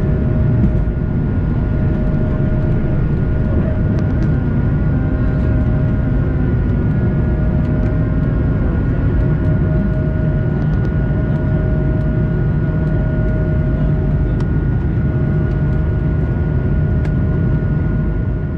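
Airbus A220-300's Pratt & Whitney PW1500G geared turbofans at takeoff thrust, heard inside the cabin through the takeoff run and initial climb. It is a loud, steady rumble with a constant whine running through it.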